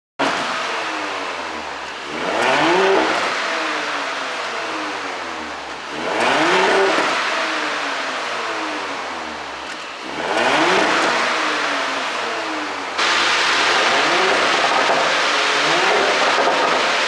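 Porsche Cayenne Coupe 3.0T's turbocharged V6 and exhaust, running on a pop-and-crackle ECU tune. It swells three times as the revs climb and fall back, then jumps to a steady louder level about 13 seconds in.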